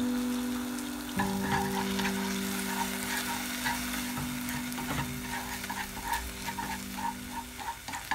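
Eggs sizzling in a nonstick pan while a wooden utensil stirs and breaks them up, scraping the pan in quick repeated strokes from about a second in.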